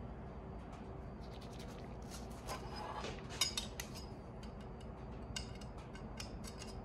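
Small metal hand tools, a steel square among them, clicking and clinking as they are picked up and set against a steel workbench, with a sharper clink about three and a half seconds in, over a low steady hum.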